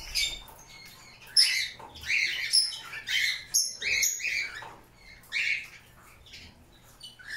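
A canary bathing in a shallow glass dish, beating its wings in the water in short bouts of splashing. The splashing stops near the end as it climbs onto the rim.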